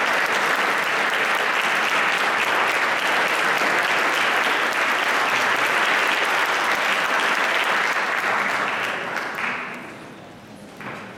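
Audience applauding steadily, dying away about nine or ten seconds in.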